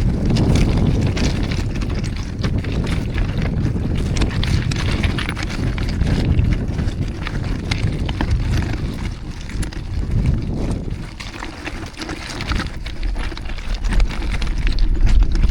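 Wind buffeting the microphone of a moving bicycle, with street traffic noise and frequent small rattling clicks. It eases off briefly past the middle and swells again near the end.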